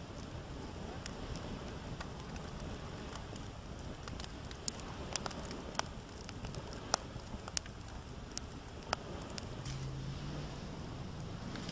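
Open campfire crackling, with a dozen or so sharp, irregular pops over a steady hiss.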